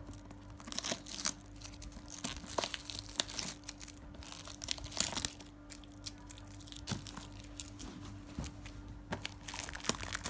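Silver foil gift-wrapping paper being torn and crinkled by hand in irregular crackling bursts, easing off for a couple of seconds about two-thirds of the way through.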